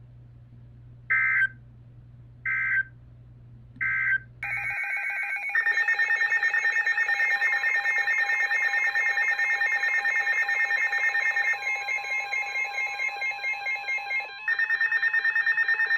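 Emergency Alert System data tones between weather-radio warnings. Three short, shrill electronic chirps come about a second and a half apart, typical of the end-of-message code. From about four seconds in, a long, harsh, pulsing electronic tone follows, as the header and alert signal of the next warning.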